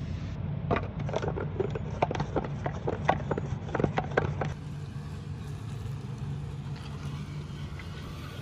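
Plastic Flo-Master half-gallon hand-pump garden sprayer being pumped: a quick, uneven run of plastic clicks and squeaks from the plunger, about three a second, stopping about four and a half seconds in. A faint hiss of spray follows, over a steady low rumble.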